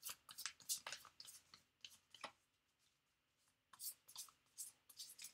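Tarot cards being handled and shuffled by hand: faint, irregular card clicks and flicks, pausing for about a second and a half midway.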